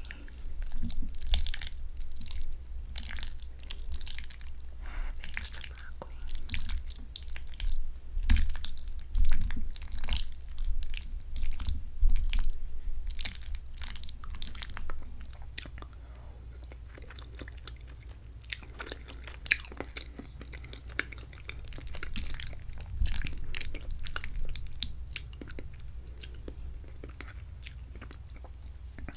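Close-miked chewing of creamy chicken and shrimp fettuccine alfredo: a run of mouth clicks and smacks, busiest and loudest in the first half, thinning out after the middle.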